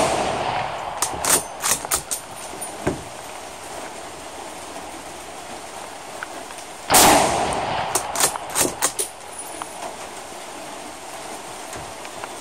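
Chinese Type 53 bolt-action carbine (a Mosin-Nagant copy in 7.62x54R) firing one loud, sharp shot about seven seconds in that echoes as it dies away, followed by quick metallic clicks of the bolt being worked. At the start the echo of a shot fired just before is still fading, with more bolt clicks after it.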